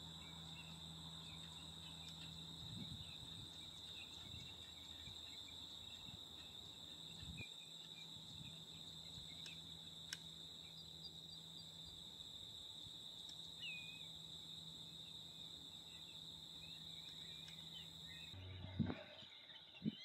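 Faint, steady high-pitched trill of insects, with scattered faint short chirps over a low hum. Near the end the background changes and a couple of short thumps stand out.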